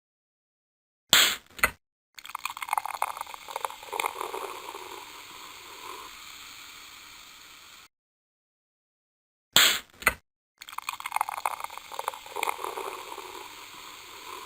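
A Pepsi is opened with a sharp crack and hiss, then poured and fizzing, the fizz fading away over several seconds. The whole sequence is heard twice.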